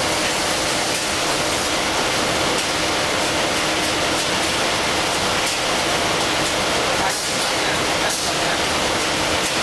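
Facial tissue production line running: a steady mechanical din from the folding machine and conveyor, with a faint hum and a few soft knocks.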